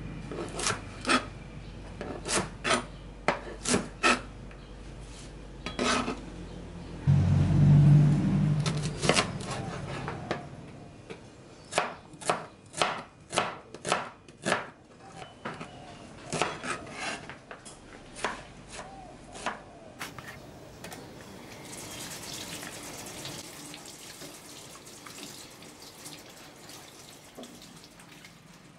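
A chef's knife chopping vegetables on a plastic cutting board, sharp knocks of the blade against the board in quick irregular runs. About seven seconds in, a louder low rumble lasts for about three seconds. The chopping stops for the last several seconds, leaving a faint steady hiss.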